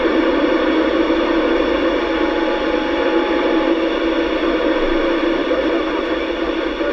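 Steady static hiss from a Yaesu FT-8900R FM transceiver's speaker, with a few faint steady tones in it. The squelch is open on 145.800 MHz and no voice is coming through yet.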